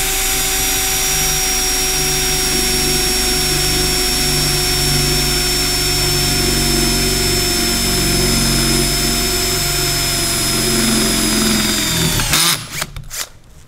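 Cordless drill running steadily under load, drilling out the cap on top of a steering spindle's kingpin, a loud steady motor whine that sags slightly and stops about twelve seconds in. A few light knocks follow.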